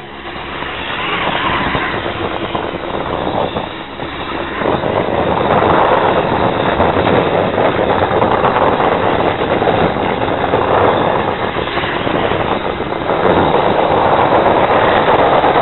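Loud vehicle engine noise, swelling and easing off several times.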